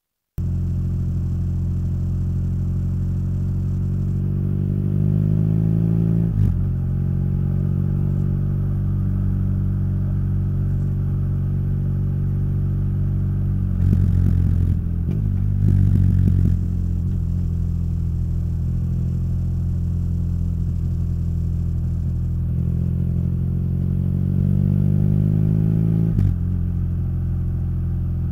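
BMW R nineT boxer twin idling through its Akrapovic exhaust. It is revved up slowly twice, the pitch climbing for about two seconds before dropping suddenly back to idle. Between the two revs, about halfway through, come two brief louder, rougher bursts.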